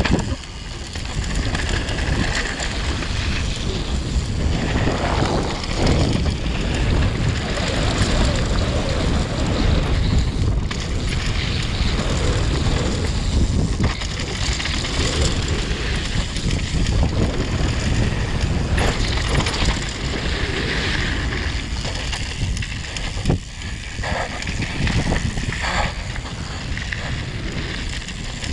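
Wind rushing over a mountain bike's helmet- or chest-mounted camera microphone on a fast downhill run, with the tyres rolling over loose dirt and gravel. A few sharp knocks come from the bike jolting over bumps.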